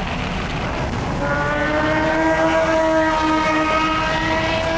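A loud motorbike engine running at high, nearly steady revs, coming in about a second in, over the low rumble of the bike riding on dirt.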